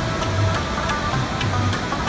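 Rabab music: plucked strings in an even rhythm over deep bass notes, with the steady rush of a waterfall underneath.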